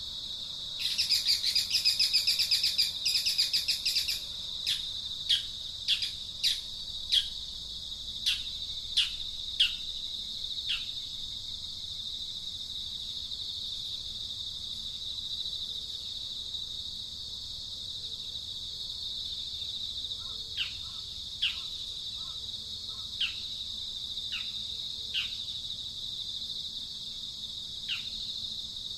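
Birds calling over a steady high insect drone. A rapid trill comes about a second in, then single downward-sweeping chirps repeat every second or so, fall silent for a while, and pick up again sparsely in the second half.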